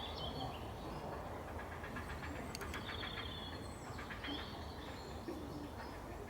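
Wild birds calling with short, high chirps, scattered through, including a quick rattling run of notes about two and a half seconds in, over a steady low background rumble.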